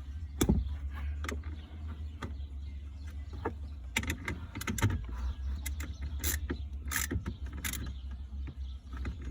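Scattered sharp clicks and knocks of hand tools and engine parts being handled, over a steady low hum.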